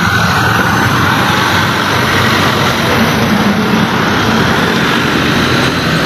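Busy road traffic passing close: cars and trucks climbing a short hill, with the low, steady running of truck engines under the noise of the passing vehicles.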